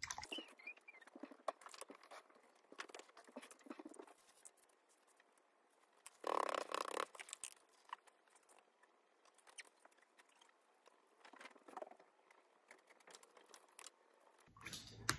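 Faint scratchy rustling and light taps of watercolour painting: a brush on paper and a crumpled paper towel dabbing paint off the sheet. A louder rustle lasts about a second partway through.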